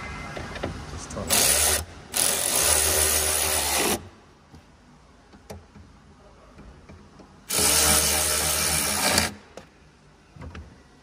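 Small cordless power driver running in three bursts, a short one and then two of about two seconds each, driving in the T30 Torx screws that hold the plastic cover over the rear light unit.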